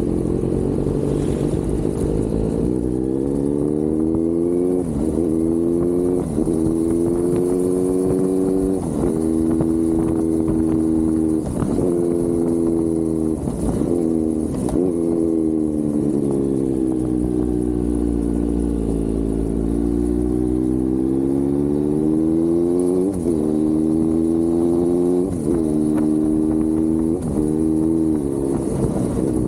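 Kawasaki Z900's inline-four engine pulling hard through the gears. The pitch climbs in each gear and drops sharply at each quick upshift. In the middle it winds down slowly as the bike slows, then climbs through several more quick upshifts near the end.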